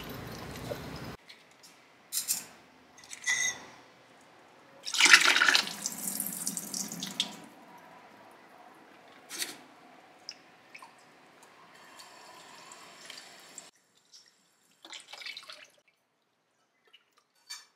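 Shirataki noodles and their packing liquid poured from the bag through a wire-mesh strainer into a stainless-steel sink, splashing loudest about five seconds in. Then the drained noodles drip and are rinsed, with a few short splashes.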